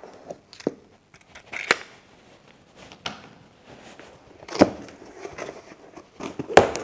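Cardboard shipping box being opened by hand: scrapes and rustling of cardboard with scattered sharp knocks as the top is worked free and the flaps are pulled open, the loudest knocks near the end.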